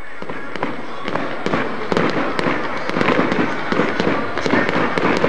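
Fireworks going off: a rapid stream of sharp bangs and crackles that gets louder and denser about a second in.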